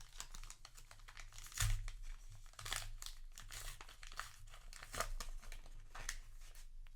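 Foil booster pack wrapper crinkling and being torn open by hand, with irregular sharp crackles throughout.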